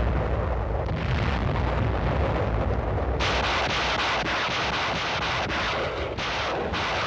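Naval shore bombardment, as on an old war-film sound track: a continuous low rumble of artillery and explosions. About three seconds in it turns harsher and crackling, with many rapid bursts in quick succession.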